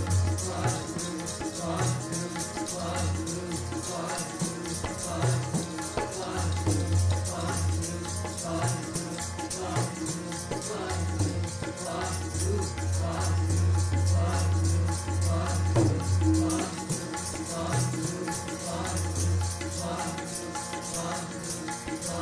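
Sikh kirtan music: harmonium and tabla playing a steady, even rhythm, with deep tabla bass strokes recurring throughout.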